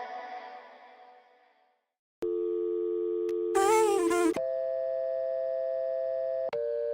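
A song fades out, followed by a moment of silence. About two seconds in, a telephone dial tone of two steady notes starts. Near the middle it switches to a higher two-note tone like a busy signal, and a brief voice sounds over the tones.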